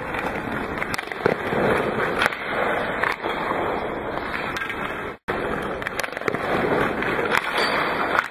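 Ice hockey goalie's skates and leg pads scraping and sliding across the ice, with a few sharp knocks. The sound cuts out for an instant about five seconds in.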